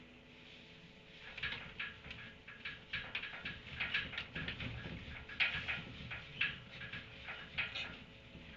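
A quick, irregular series of short, sharp animal sounds, starting about a second in and thinning out near the end.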